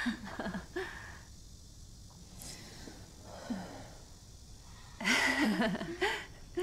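Women laughing: a short laugh at the start, then a louder burst of laughter about five seconds in, with quiet room tone between.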